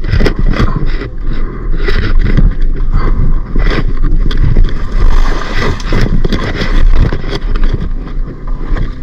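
Small boat at sea: a steady low rumble with frequent knocks and thumps throughout.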